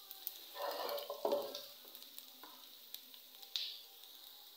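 Spatula stirring diced potatoes and onions in a frying pan, with a few scraping strokes, the strongest about a second in, over a faint steady sizzle of the spiced mixture frying.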